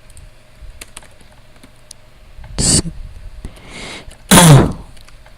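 Light computer keyboard typing with scattered soft key clicks. There is a short hissing burst about two and a half seconds in, and a louder short vocal sound, falling in pitch, near the end.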